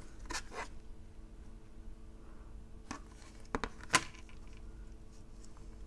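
Plastic parts of an opened wireless charging base being handled: a few short clicks and scrapes, the sharpest and loudest about four seconds in, over a faint steady hum.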